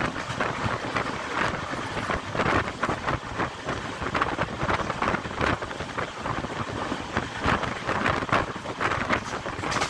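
Wind rushing and buffeting the microphone at the window of a moving train, over the train's running noise.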